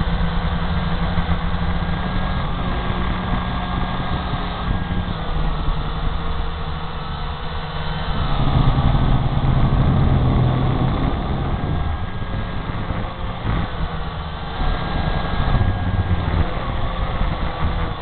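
Syma X8 quadcopter's motors and propellers running, heard from its own onboard camera: a steady multi-tone hum whose pitch shifts as the throttle changes, louder for a few seconds around the middle.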